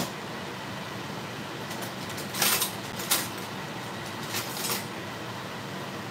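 A pot of spaghetti boiling hard on a gas burner: a steady hiss of bubbling water, with a few short, louder splutters a little past the middle.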